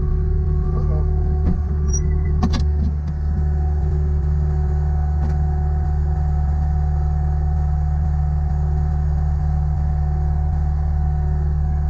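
Diesel engine of a John Deere 329E compact track loader running steadily, with a sharp clank about two and a half seconds in.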